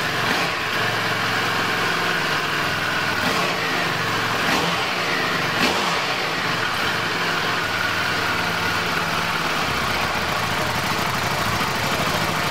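EBR 1190RX motorcycle's 1190 cc V-twin engine idling steadily, a newly uncrated bike run up after its fuel and oil were checked.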